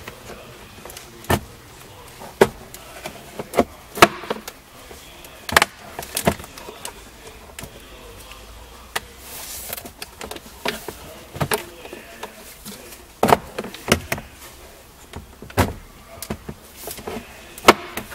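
Plastic glove box being worked back into a Subaru dashboard: an irregular series of sharp clicks and knocks of hard plastic against the dash, with a brief hiss about nine seconds in.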